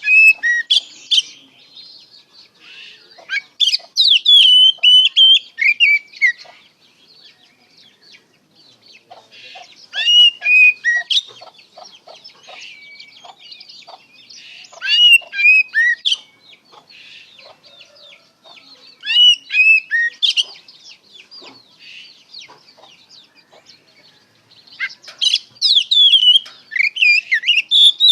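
Oriental magpie-robin (kacer) singing its full, open song: about six loud bursts of clear whistled phrases with sliding notes, a few seconds apart, with quieter chattering and clicking notes between them.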